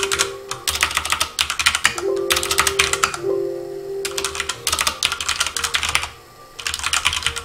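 Typing on a computer keyboard: quick runs of key clicks broken by short pauses, with a longer pause shortly before the end.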